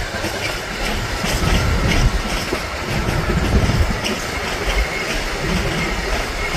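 Train passing close by: a steady rolling rumble of wheels on rails, with many short clicks of wheels running over rail joints.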